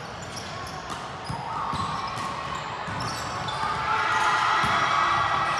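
Volleyballs being struck and bouncing on hardwood gym floors across several courts, a scatter of short knocks echoing in a large hall. The noise swells in the second half.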